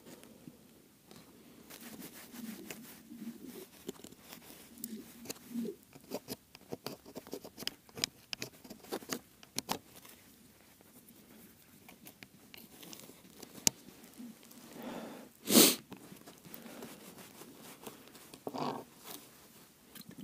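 Close handling noises while rigging an ice-fishing tip-up: rustling of padded jacket sleeves, with small clicks and taps from the tip-up's plastic line spool and line. One louder thump comes about three-quarters through.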